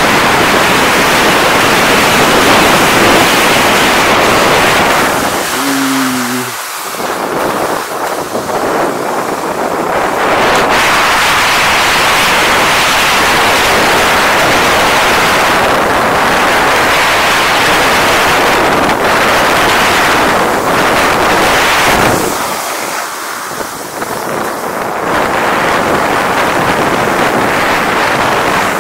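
Loud rushing wind on the microphone of a rider-mounted camera during a snowkite ride. The rush eases briefly about six seconds in and again about twenty-two seconds in.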